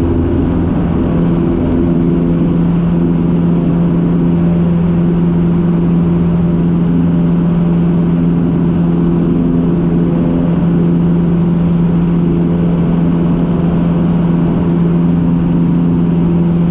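Cessna 150's Continental O-200 four-cylinder engine and propeller droning steadily in flight, heard from inside the cabin.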